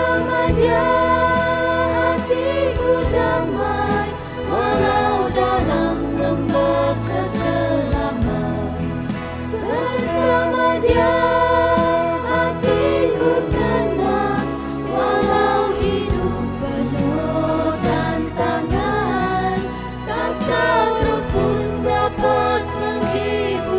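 A small mixed vocal group of women and a man singing a Malay-language Christian worship song together over backing music.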